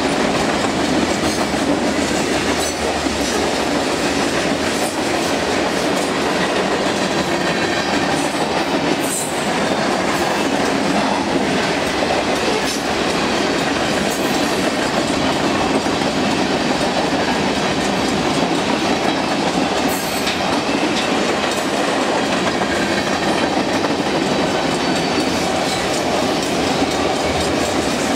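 Long mixed freight train's cars (boxcars, covered hoppers and autoracks) rolling by at speed, their steel wheels on the rails making a steady, loud rumble.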